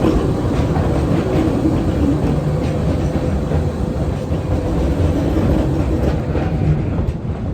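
A 120-year-old wooden train running along the track: a steady, loud rumble with the clatter of its wheels.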